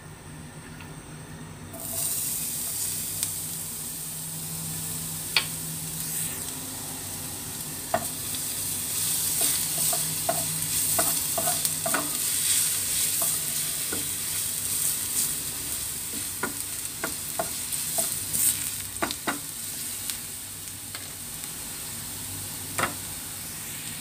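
Minced garlic frying in hot oil in a non-stick pan. The sizzle starts suddenly about two seconds in, as the garlic goes in, while a wooden spatula stirs and scrapes, knocking against the pan now and then.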